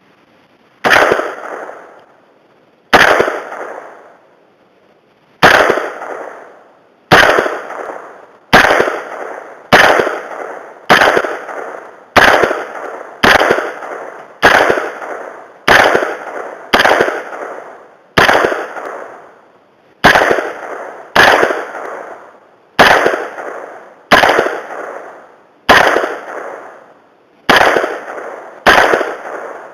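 Smith & Wesson M&P-15 AR-15 rifle firing single semi-automatic shots, about twenty of them, roughly one every second or two and coming a little faster after the first few. Each loud crack trails off in an echo lasting about a second.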